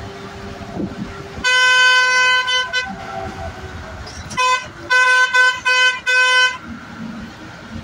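Bus horn sounding in one long blast of about a second and a half, then several short toots a couple of seconds later, over the steady running of the bus's engine and road noise heard from inside the cab.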